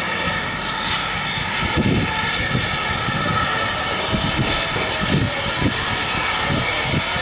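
Steam locomotive running slowly into a station platform: a steady whine and hiss, with irregular low rumbling thuds from about two seconds in.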